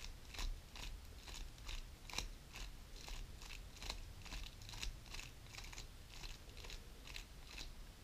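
GAN 11 M Pro magnetic speedcube being turned quickly by hand, its layers clicking softly as they snap into place, about three turns a second.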